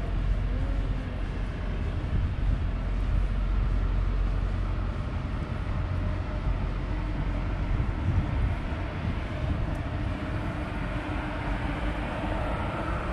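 Steady rumble of street traffic, with a faint vehicle whine growing slightly louder near the end.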